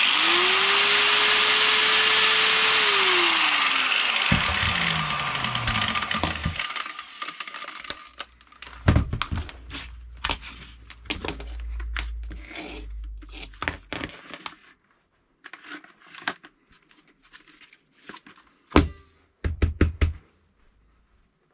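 A high-speed electric motor starts, runs at speed for about three seconds, then winds down after being switched off. Scattered clicks and knocks follow.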